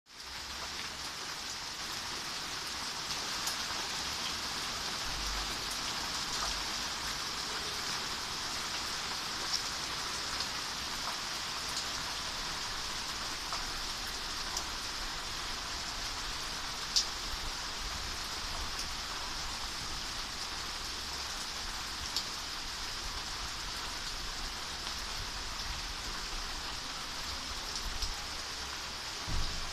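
Steady rain falling, an even hiss with scattered sharper ticks of single drops, one louder about halfway through. A short low thump comes just before the end.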